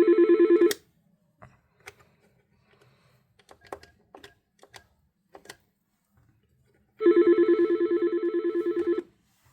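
Yealink T31P IP desk phone playing ringtone samples through its speaker: a fast electronic trill ends just under a second in, a scatter of clicks follows, and a second two-second trill plays about seven seconds in, fading slightly towards its end.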